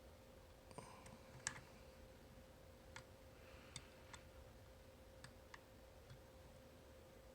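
Faint, scattered metallic clicks of a homemade pick working the rotating discs of an Abloy Classic disc-detainer cam lock, about nine in all, the loudest one and a half seconds in, over a faint steady hum.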